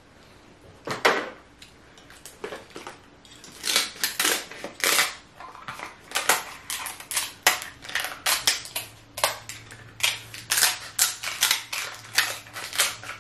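Scissors snipping and cracking through king crab leg shells: a quick run of sharp cracks and crunches, one loud crack about a second in, then many more from about three and a half seconds on.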